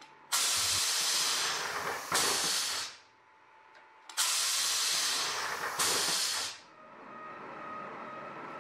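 Compressed air hissing from a pneumatic press used to dimple the edge of an aluminium inspection cover. Two long hisses of about two and a half seconds each come a second apart, each dipping briefly near its end.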